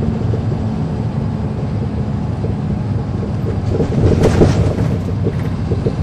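Caterpillar C13 ACERT diesel engine of a NABI 40-foot transit bus running, heard inside the cabin from the back seats, with a steady low rumble. About four seconds in comes a louder burst of knocks and rattles.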